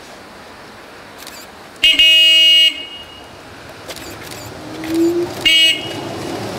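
Horn of a Hamburg U-Bahn DT 2 train: one blast of just under a second, then a short toot about three and a half seconds later. Just before the toot there is a short rising whine from the train.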